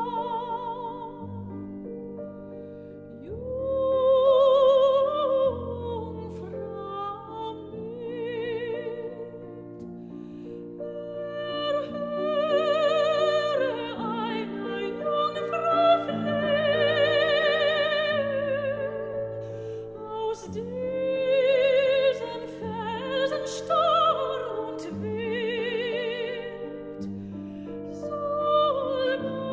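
Operatic music: a singing voice with strong vibrato holding long notes over sustained low chords, swelling louder several times.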